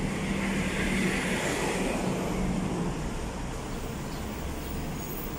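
Steady rumble of city traffic, with a low hum and a hiss that fade about three seconds in.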